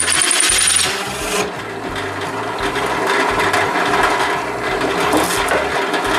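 Benchtop drill press with a 2 1/8-inch hole saw cutting through a walnut board. The cutting stops about a second in; the drill press keeps running with a steady hum while the board is handled and slid across the sawdust-covered table.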